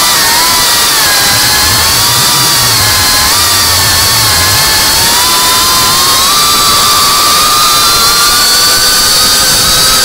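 FPV drone's electric motors and propellers whining, several pitches wavering with the throttle and creeping slowly higher over the last few seconds, over a steady hiss of rushing air.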